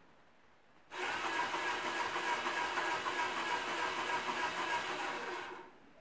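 Small geared DC motor of an animatronic bird running, driving its crank linkage: a steady mechanical whir that starts abruptly about a second in and winds down near the end, as the control module runs one timed movement of the cycle.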